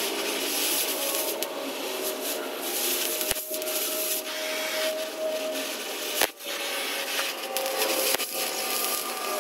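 Oxy-fuel cutting torch cutting through the thick steel of a dozer push arm: a steady hiss of the cutting jet, with a few sharp pops.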